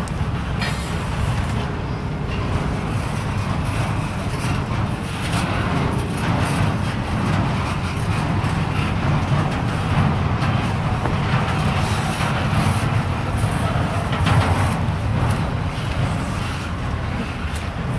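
CSX intermodal freight train's container well cars rolling past: a steady low rumble of steel wheels on the rails, with scattered clicks and knocks throughout.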